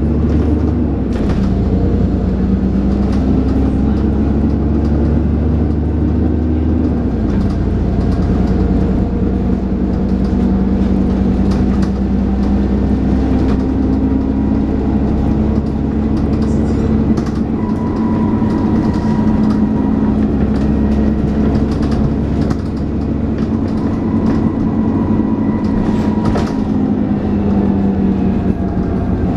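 Diesel engine of a Dennis Trident 2 double-decker bus running under way, heard from on board with cabin rattles. The engine note shifts about seven seconds in, and a thin high whine (the 'hoover') sits over it from about a third of the way in until near the end.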